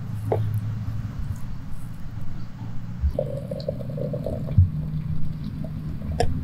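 Water running from a samovar's tap into a glass teapot of dried flowers and herbs, starting about three seconds in, over a steady low rumble.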